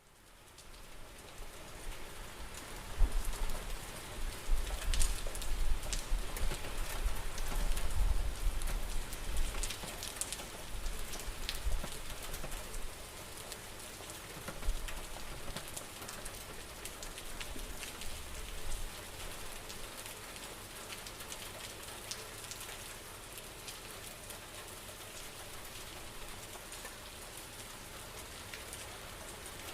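Steady rain falling and pattering on surfaces, fading in at the start, with a deep low rumble under it for the first dozen seconds that then settles back to even rain.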